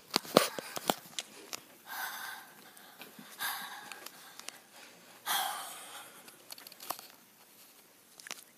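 Soft clicks and knocks, most of them in the first second, with three short breathy rustles about two, three and a half, and five seconds in.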